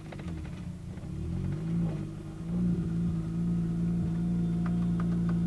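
Kia Stinger 3.3-litre twin-turbo V6 in a DeLorean running on the road, its note wavering and dropping back in the first two seconds, then holding a steady, louder drone from about two and a half seconds in.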